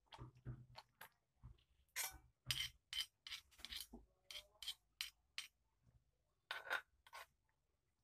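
A stone pestle grinding and pressing sambal in a cobek mortar, with a metal spoon scraping around the mortar: a run of irregular scrapes and clinks that stops near the end.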